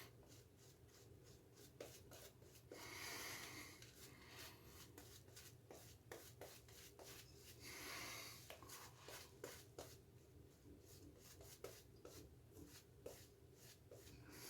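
Faint wet-shaving sounds on the face: many short soft scrapes and rubs, with two longer hissy strokes about three and eight seconds in.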